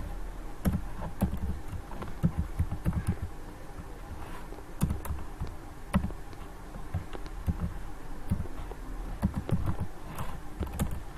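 Computer keyboard being typed on: irregular clusters of key clicks, over a steady low hum.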